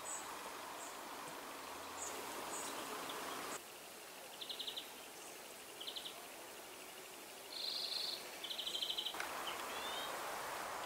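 Small songbirds chirping and trilling: a few short high chirps, then several quick rattling trills in the middle, over a steady outdoor hiss.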